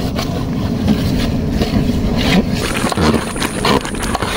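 A long metal ladle stirring a large aluminium cooking pot of steaming curry, knocking and scraping against the pot, over a steady low rumble.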